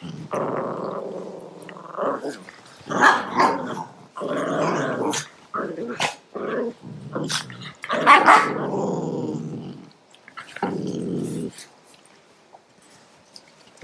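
Cavalier King Charles spaniels play-wrestling, growling in repeated rough bursts. The growling stops a couple of seconds before the end.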